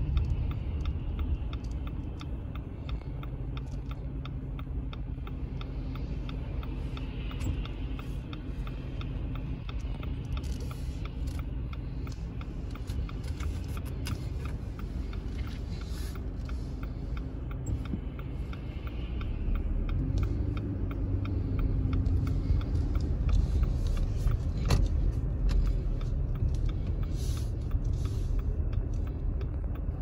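Car cabin noise while driving on snow- and slush-covered roads: a steady low rumble of the engine and tyres, growing somewhat louder for a stretch about two-thirds of the way through.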